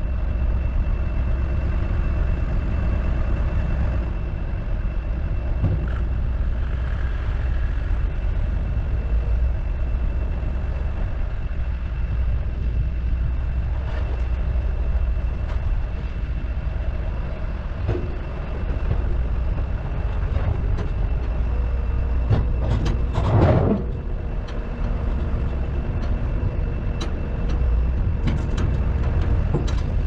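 Gehl skid steer's diesel engine running as the machine drives up and onto a wooden flatbed trailer deck, over a steady low engine rumble. A single loud thud-like burst about three-quarters of the way through, as it climbs onto the deck.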